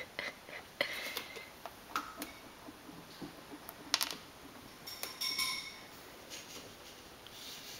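Scattered light clicks and clinks of hard objects tapping around a baby turtles' tank, a few with a brief ringing tone. The sharpest click comes about four seconds in, and the taps thin out after about six seconds.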